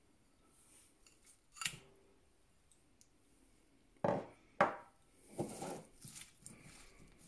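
Cleaned raw anchovies tipped into a ceramic bowl of wet chilli marinade, then two sharp knocks about four seconds in, followed by hands squelching and rubbing the fish through the marinade.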